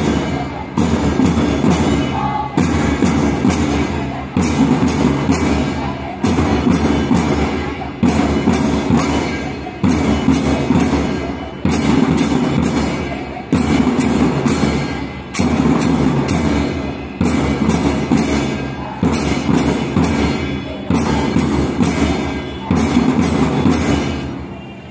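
Ceremonial drums beating the Young Pioneer flag-salute rhythm: a repeating pattern that opens with a cluster of quick strokes about every two seconds, stopping near the end.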